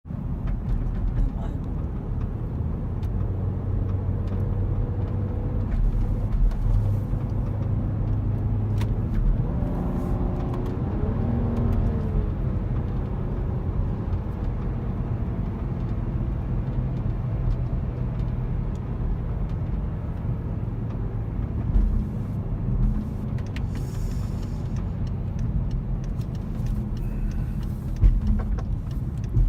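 BMW E70 X5 driving, with a steady engine and road drone. The engine note shifts up and down around ten seconds in, and there are short thumps about twenty-two and twenty-eight seconds in. These are the hard jerks and knocks under acceleration that the owner suspects come from the transmission.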